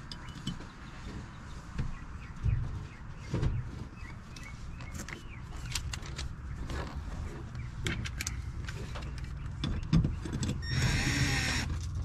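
Scattered clicks and light knocks of door parts and wiring connectors being handled, with a few dull thumps. Near the end a cordless drill starts running against the door.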